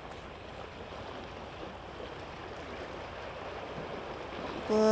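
Gentle sea waves washing against a rocky shore: a steady soft hiss of water. Near the very end a short held vocal 'uu' cuts in.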